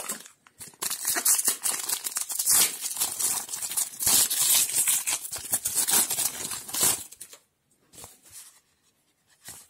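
Crinkling foil wrapper of a trading card booster pack being torn open by hand. The tearing and crinkling runs for several seconds and stops about seven seconds in, leaving only a few faint rustles.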